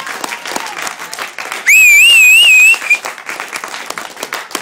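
Spectators clapping continuously, with a loud, shrill whistle that wavers up and down in pitch for about a second near the middle.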